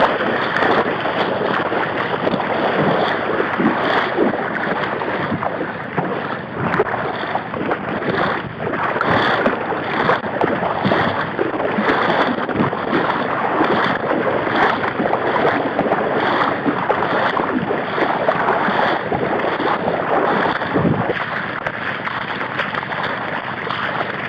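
Water sloshing and splashing as a person wades through shallow marsh water, with a surge about once a second at each stride.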